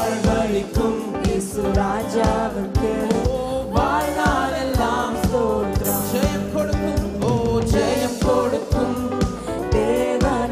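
A man singing a Christian worship song into a handheld microphone over band accompaniment with a steady drum beat.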